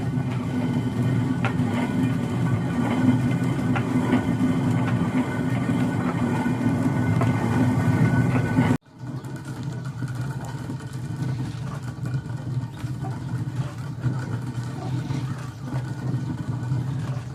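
A motor engine running steadily with an even hum. It breaks off abruptly about nine seconds in and comes back slightly quieter.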